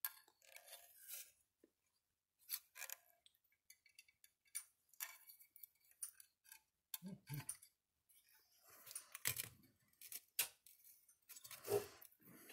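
Faint, scattered clicks, taps and handling noises of hands working on a fence energizer's circuit board and its capacitors.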